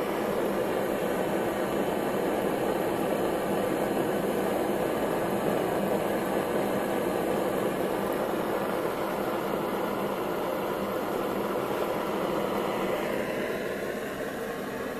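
Propane-heated Warpfive Stirling engine running steadily, driving its small DC generator and water pump: a steady mechanical whir with a hiss, a little quieter near the end.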